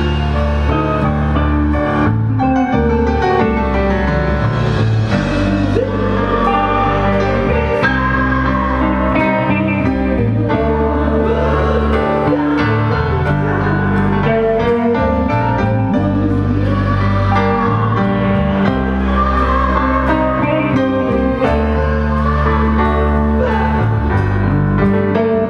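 A live band playing a pop song: steady bass and sustained chords underneath, with a wavering melody line on top from about six seconds in.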